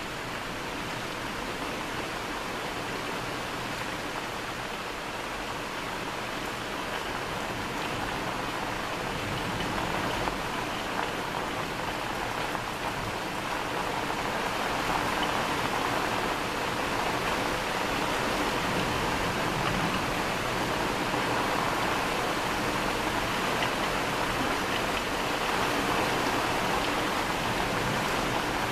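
Steady thunderstorm rain, an even hiss with no thunder claps, growing a little louder about halfway through.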